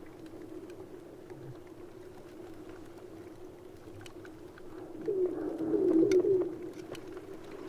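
Sea ice floes rubbing against each other, giving a steady low squeaking tone. About five seconds in it swells into a louder, wavering squeal for a second and a half, with scattered faint ticks throughout.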